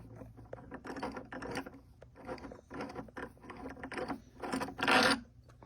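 Metal parts of a small swivel-base table vise being worked by hand as it is extended and taken apart: a run of small irregular clicks and rattles, with a louder scrape about five seconds in.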